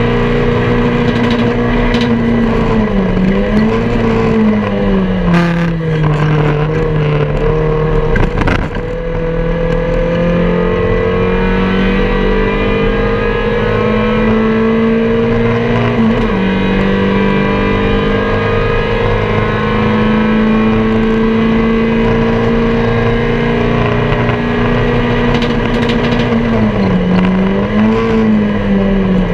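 MG Metro race car's four-cylinder A-series engine heard from inside the cabin, held mostly at high revs under racing load. The pitch dips and recovers a few times, and about halfway through it drops sharply on an upshift, then climbs steadily again.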